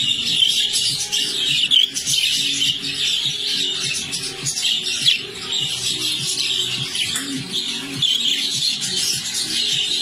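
Budgerigars chattering and warbling in a continuous, overlapping stream of high chirps, with music underneath.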